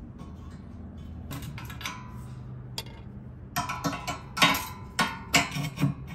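A metal grate-lifter tool clinking against the grill's metal cooking grate as it is set in place. There are a few light clicks early on, then a quick run of sharp metallic clinks in the second half.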